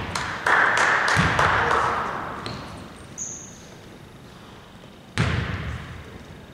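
A basketball bouncing on a hardwood court, a few separate bounces echoing in a large, nearly empty hall, with a burst of noise about half a second in.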